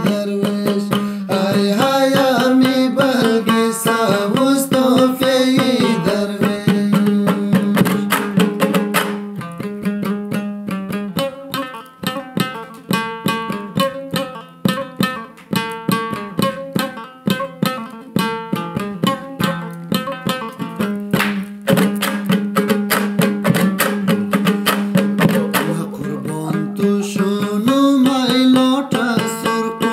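Hazaragi dambura, a two-string long-necked lute, played with fast, even strumming strokes over a held low note. A man's voice sings over it at the start and again near the end, with an instrumental dambura passage in between.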